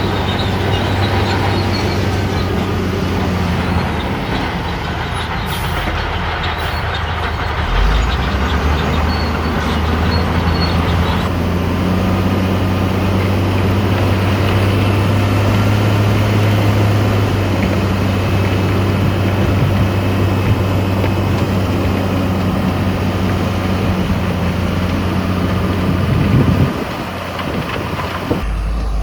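Heavy diesel earthmoving machinery running under load, with a steady low engine drone. The engine note drops away abruptly near the end.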